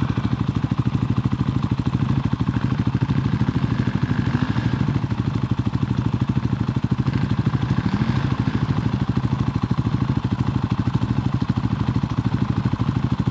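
Dirt bike engine running steadily at low revs, its firing pulses even and unbroken.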